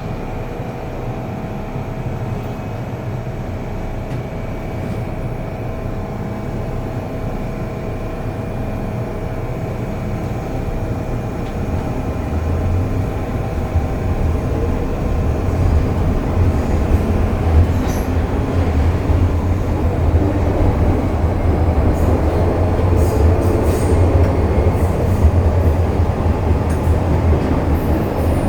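MTR Kwun Tong Line M-Train running on the line, a continuous rumble of wheels and running gear. Steady humming tones fade over the first several seconds, and from about twelve seconds in a deeper rumble builds and the noise grows louder.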